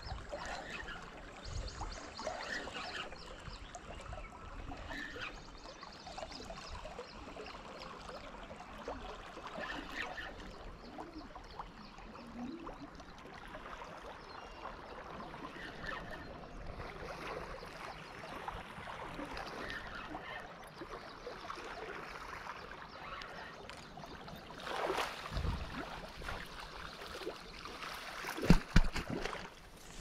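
Low, steady sound of river water, with faint handling noise from a spinning rod and reel as a lure is cast and retrieved. A few louder knocks and rustles near the end.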